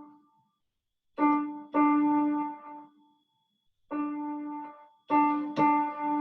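A single repeated note on an electronic keyboard tapping out Morse code: short and long tones (dots and dashes), grouped into letters with a pause of about a second between the first group and the next.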